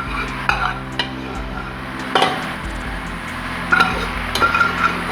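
A spoon clinking and scraping against a cooking pan, in scattered knocks with short rings, as leftover gravy is spooned over stir-fried vegetables.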